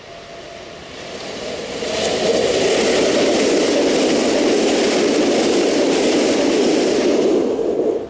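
Newag Impuls 35WE electric multiple unit passing close, the rush of its wheels on the rails swelling over the first two seconds and staying loud, then cutting off suddenly near the end.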